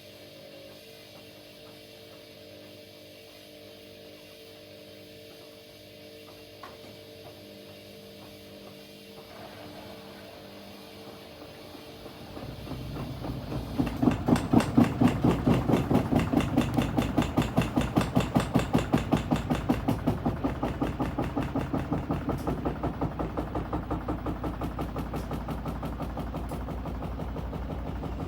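Washing machine running: low hum at first, then about twelve seconds in the drum picks up speed and turns with a rhythmic thump-and-whoosh a few times a second, loudest shortly after it starts and easing off slightly after.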